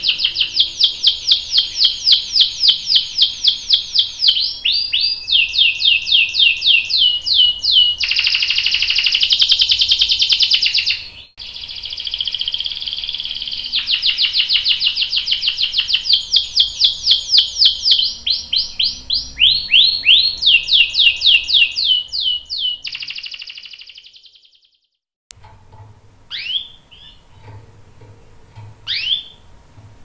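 Canary singing long rolling trills of fast repeated notes, switching to a new trill every few seconds. The song breaks off about six seconds before the end, and a few short single chirps follow.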